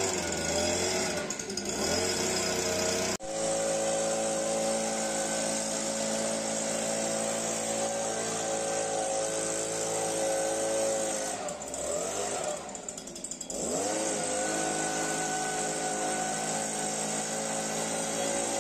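Petrol handheld leaf blower running at high throttle, a steady engine whine over the rush of air. About twelve seconds in, the engine note sags and then climbs back to full speed as the throttle is eased off and reopened.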